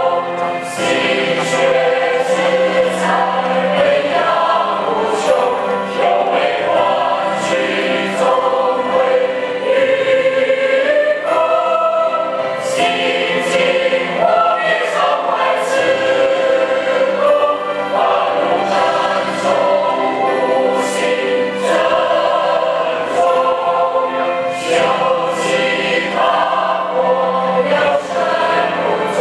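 Large mixed choir of men and women singing a Chinese Buddhist hymn in sustained full chords, with the sharp consonants of the words cutting through.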